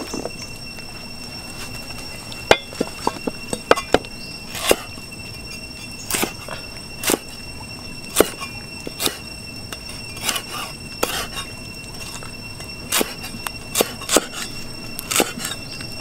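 Cleaver chopping lemongrass stalks on a round wooden chopping block: sharp knocks, starting about two and a half seconds in, irregular and roughly one a second with some quick runs. A steady high-pitched tone sounds underneath.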